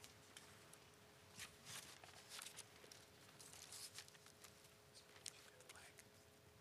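Near silence with faint rustling and scattered soft clicks from a congregation getting to its feet, over a faint steady hum.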